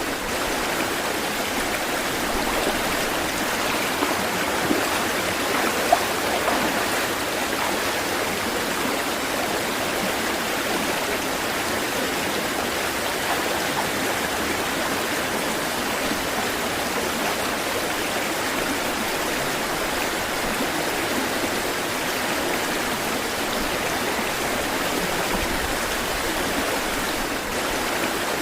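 Flowing water rushing steadily and evenly, like a stream, with a few brief louder blips about five to six and a half seconds in.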